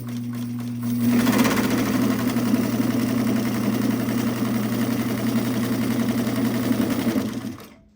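White 658 sewing machine's motor humming steadily, then about a second in the machine speeds up and sews a straight stitch with a fast, even clatter of the needle mechanism, which stops suddenly near the end.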